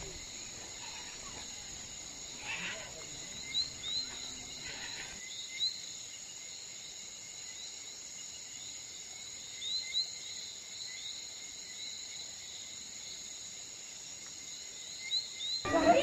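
Outdoor insect chorus: a steady high drone of insects, with short rising chirps repeating in small clusters throughout.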